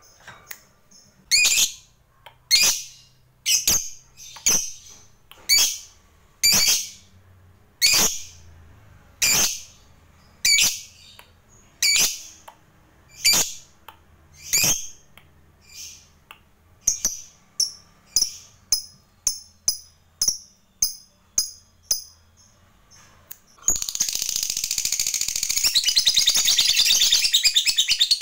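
Lovebird calling with sharp, high chirps about one every second and a half. Near the end of the run the chirps quicken to about two a second, then about 24 seconds in it breaks into a long, rapid chattering trill (the prized 'ngekek panjang').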